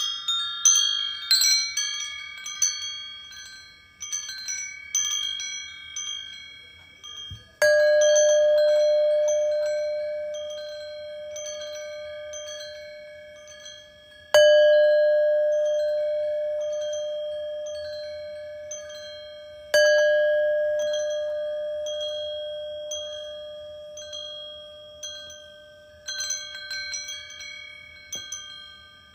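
Wind chimes tinkling, with three separate strikes of a deeper bell-like tone. Each strike rings on and fades slowly over several seconds, and the light chime tinkles return near the end.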